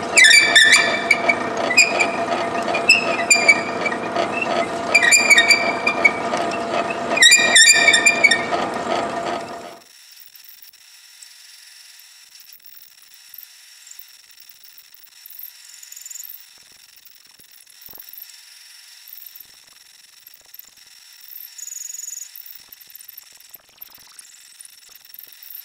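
Metal lathe drilling out the bore of a cast part with a tailstock-held fluted cutter: a loud, steady pitched ringing with repeated sharp squeals as the cutter bites and throws chips. About ten seconds in it stops suddenly, leaving only a faint hiss.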